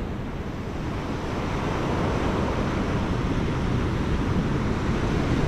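Surf washing onto the beach, with wind buffeting the microphone.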